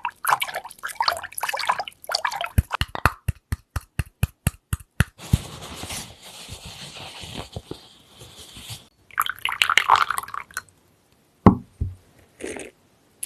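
Water and wooden tools in traditional handmade paper making: splashing and dripping water, a quick run of sharp wooden knocks at about four a second, then a stretch of steady running water, more splashing, and a low thump near the end.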